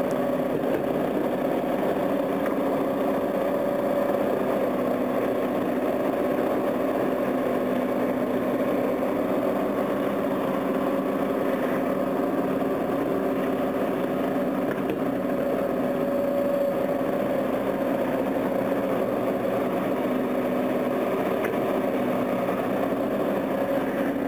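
Heavy diesel engine of construction machinery running steadily at an even speed, with a constant hum that does not rise or fall.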